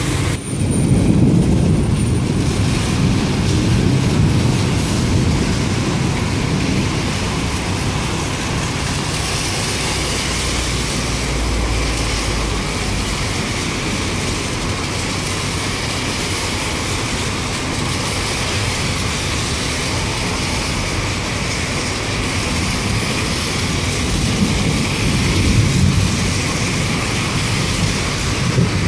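Rain and traffic on a wet city street: a steady hiss of rain and tyres on wet road, with low rumbling that swells near the start, around ten seconds in and again near the end.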